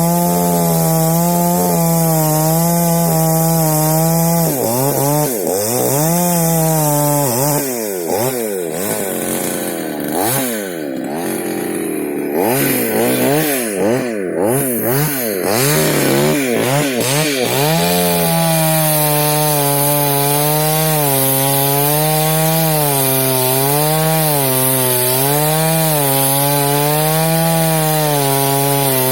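Chainsaw cutting through a fallen rubber tree trunk, running at high speed under load. From about five seconds in, its pitch swings up and down again and again as it revs and bogs. After about eighteen seconds it settles into a steadier, slightly wavering cut at a lower pitch.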